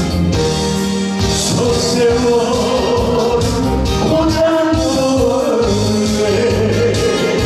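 Korean trot song played loud through a hall PA: a backing-band track with a man singing into a microphone.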